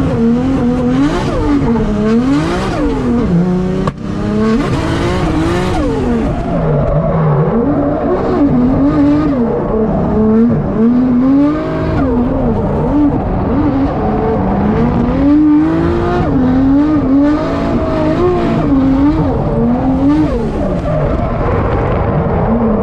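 Turbocharged Nissan Skyline R33 drift car heard from inside the cabin, driven hard in third gear, its engine revs rising and falling again and again as the throttle is worked. There is a brief sudden drop in engine noise about four seconds in.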